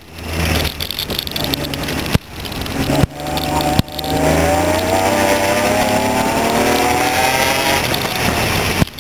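1993 Dodge Stealth R/T's naturally aspirated 3.0-litre V6 heard from inside the cabin, driven hard on an autocross course. The sound dips sharply several times in the first few seconds, then the revs climb in one long steady rise from about halfway through, dropping away again near the end.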